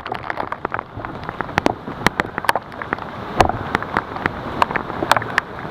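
Heavy rain falling steadily, with many irregular sharp drop hits close to the microphone.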